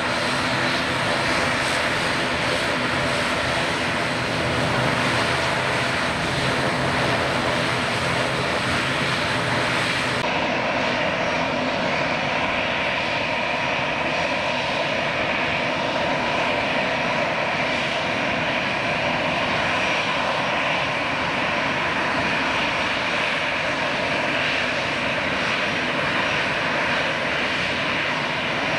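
ATR 72 twin turboprop's engines and propellers running as it taxis, a steady drone with layered tones. About ten seconds in, the sound cuts to an Airbus A320's twin jet engines at taxi power, a steady hum with a whine.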